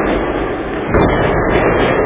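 Model train running on the layout: a steady rumbling clatter that pulses about four or five times a second. The pulsing drops out briefly and comes back with a sudden jolt about a second in.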